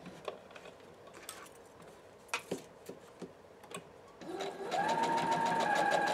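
A few light clicks, then, about four seconds in, an electric home sewing machine starts up. Its motor whine rises and it runs steadily with rapid needle strokes, stitching through quilted fabric and batting.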